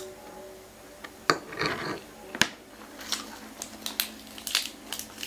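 Eating sounds: two sharp clicks of cutlery against a metal tray about a second apart, with chewing between them. Then a run of crisp crackles as a lettuce leaf is handled and torn.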